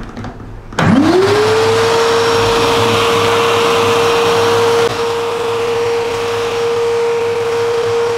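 Bosch GAS 15 PS wet and dry extractor switched on about a second in. Its motor whine climbs quickly to a steady pitch over a rush of air, and it runs on as the floor nozzle sucks up sawdust. It is slightly quieter from about five seconds in.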